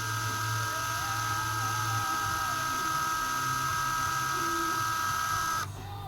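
Small electric drill running at a steady high-pitched whine as it bores out the centre of a plastic fuel-line nipple on a chainsaw purge-bulb fitting, stopping abruptly near the end.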